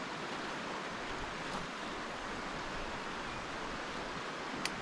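Steady rush of a rocky stream flowing beside the campsite, with a single sharp click near the end.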